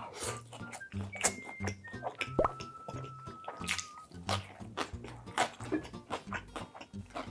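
Close-miked chewing of crunchy pickled radish (danmuji), a run of many sharp, crisp crunches over light background music.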